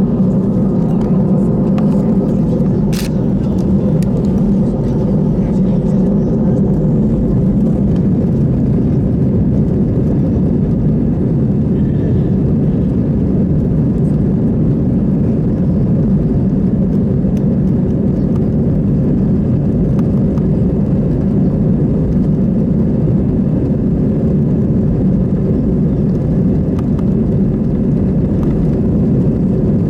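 Steady cabin rumble inside an Airbus A320-200 with its engines running, holding one level throughout, with a single sharp click about three seconds in.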